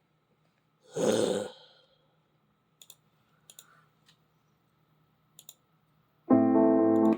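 A short breathy burst of noise about a second in, a few faint clicks, then a steady, evenly pitched tone lasting just under a second near the end.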